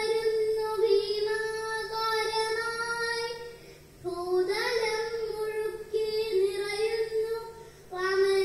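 A young girl singing a kathaprasangam song (Malayalam musical storytelling) into a microphone, in long drawn-out phrases with held notes, pausing for breath about four seconds in and again near the end.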